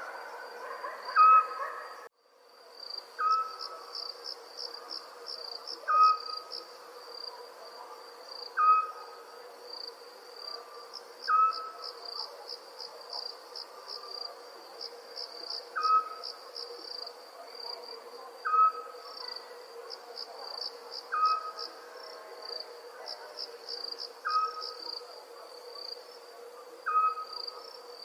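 Night ambience of crickets chirping in a steady, fast-pulsing trill, with a short clear call repeating about every two and a half seconds. The sound drops out suddenly for a moment about two seconds in, then resumes.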